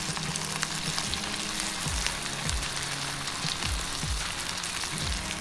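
Beef, potato and semolina snack pieces deep-frying in hot oil, a steady sizzle.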